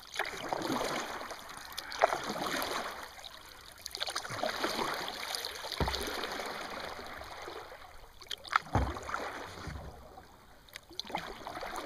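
Kayak paddle strokes on calm river water: the blades swish and drip in a swell about every two seconds. Two short low thumps come near the middle and about three quarters of the way through.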